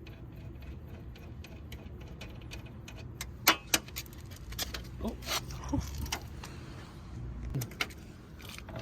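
Scattered metallic clicks and clinks of a 10mm socket and ratchet at work on a car door mirror's mounting bolts, over a low steady hum; the clicks bunch up about halfway through.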